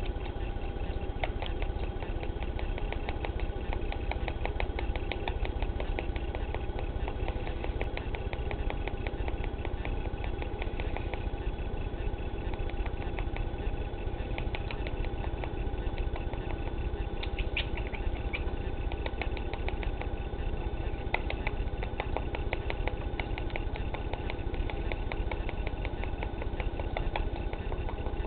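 Cockatiel's beak clicking and nibbling in quick little ticks over a steady low hum.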